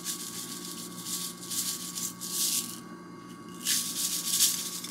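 Chocolate sprinkles shaken out of a shaker container, heard as several short bursts of fine, hissy rattling.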